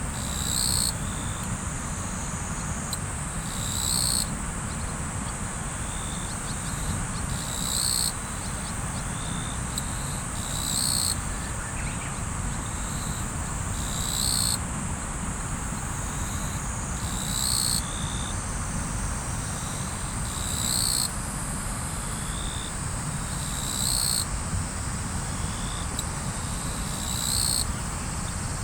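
Steady rush of river water under a continuous high insect trill, with a louder high-pitched call of about half a second repeating about every three seconds.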